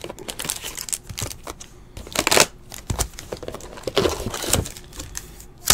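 Foil-wrapped trading card packs and cards crinkling and rustling as they are handled, in irregular bursts with small clicks, loudest about two and a half and four seconds in.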